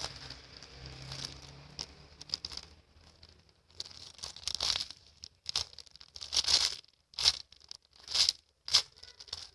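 Plastic packaging crinkling and rustling as it is handled, in a string of short, irregular bursts.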